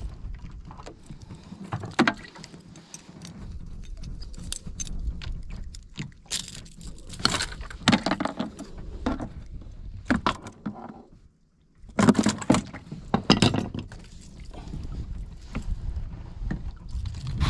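Clicking and clattering of fishing tackle being handled, a metal lip grip and a hard minnow lure with treble hooks, over steady wind rumble on the microphone. It breaks off to silence for a moment about two thirds of the way in.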